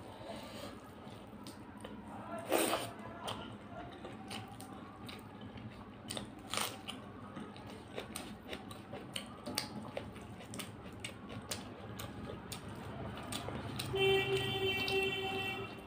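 Eating with the fingers from a brass plate: rice being mashed with chicken curry and chewed, a run of small wet squishes and clicks, with louder crunchy bites about two and a half and six and a half seconds in. Near the end a steady ringing tone sounds for under two seconds.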